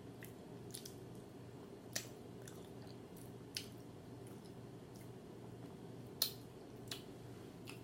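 Close-miked chewing with wet lip smacks: a quiet run of short mouth clicks, the sharpest about two seconds in and again just past six seconds, over a low steady hum.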